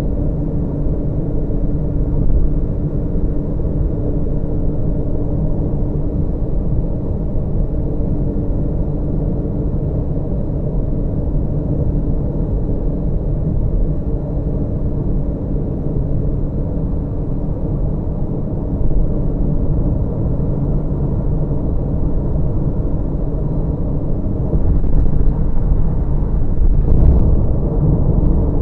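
Steady low road and engine noise of a car cruising at freeway speed, heard from inside the car, growing a little louder near the end.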